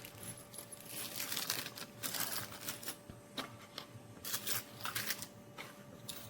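Handling noise: irregular light clicks and rustling as small plastic accessories and their packaging are moved about by hand.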